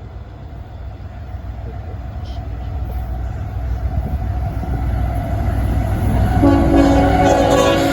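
CSX freight train approaching on the main line, its low diesel locomotive rumble growing steadily louder. Near the end the locomotive's air horn sounds a chord of several notes for about a second and a half.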